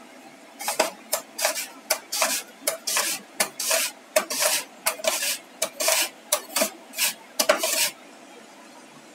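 Raw potato being slid over the blade of a plastic mandoline slicer, a rasping slicing stroke about three times a second, which stops near the end.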